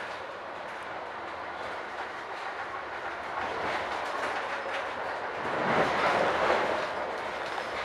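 Metra Rock Island commuter train running, heard from inside the passenger car: a steady rumble and rattle of the moving car, swelling louder for a couple of seconds about three-quarters of the way in.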